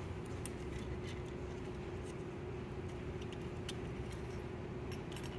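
Faint metal ticks and scrapes of a steel pick tool digging at a broken piece of rod bearing lodged in a connecting rod end on the crankshaft, over a steady background hum.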